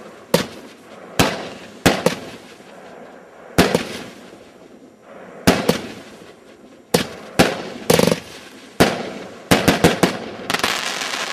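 Prometheus firework going off in a series of sharp bangs at uneven intervals, each dying away briefly, with several in quick succession near the end.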